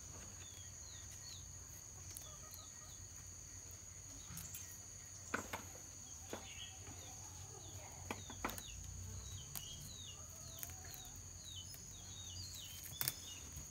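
Steady high-pitched insect trilling from crickets or cicadas, with small birds giving many short falling chirps that come thickest in the second half. A few sharp clicks are scattered through it.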